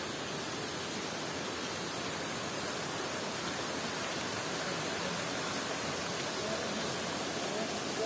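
Waterfall rushing: a steady, even sound of falling water with no breaks.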